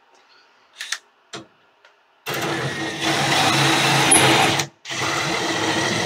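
Cordless drill-driver driving in a microwave's mounting screws: two steady runs of about two seconds each with a brief stop between them, after a couple of light knocks as the screw is set.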